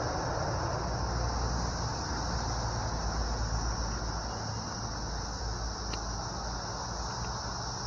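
Steady high-pitched chirring of crickets or similar insects, with a low, uneven rumble beneath it.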